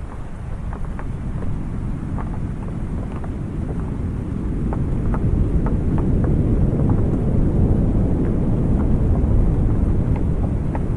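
Raindrops tapping one at a time on a wooden awning over steady rain noise, with a deep rumble that swells through the middle and eases near the end.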